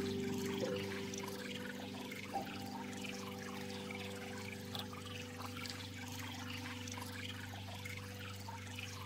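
Fine crackling, trickling noise of ear wax being worked loose inside the ear canal, over slow, held background music notes that change about two seconds in.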